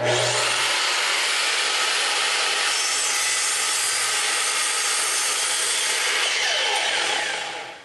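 Makita sliding compound miter saw starting up and crosscutting two red cedar boards at once, a loud steady cutting noise. Near the end the blade comes out of the wood and winds down, the sound falling away.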